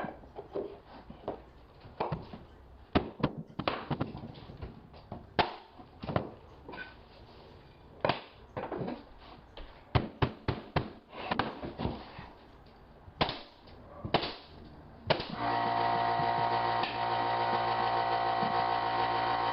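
Irregular sharp knocks and pneumatic nail-gun shots as hardwood flooring boards are set and nailed down. About fifteen seconds in, an air compressor starts up and runs with a steady hum.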